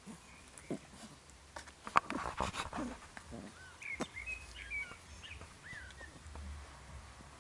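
Black Labrador puppies playing and scuffling with each other, with a cluster of sharp knocks and rustles about two seconds in, followed by a run of short high chirping sounds.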